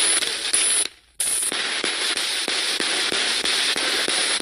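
Portable radio used as a spirit box, sweeping through stations: loud static hiss chopped by rapid clicks, about five a second, with a brief dropout about a second in.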